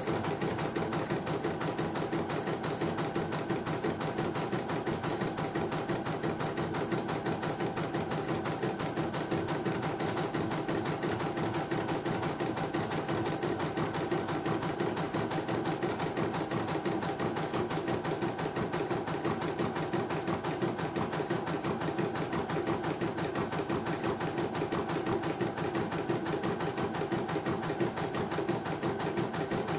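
CNY portable computerized embroidery machine stitching a design: a rapid, steady patter of needle strokes as the embroidery unit moves the hoop. After repair of a no-power fault, it runs very smoothly.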